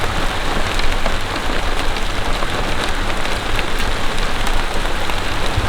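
Steady rain falling, with many close drops striking sharply.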